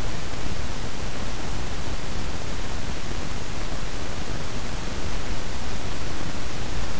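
Amplified electrical noise of a plastic-cased silicon transistor's collector current: a steady hiss, heaviest in the lows, with a short drop in level just before five seconds in. This transistor shows popcorn noise (random telegraph noise), its current jumping at random between discrete levels.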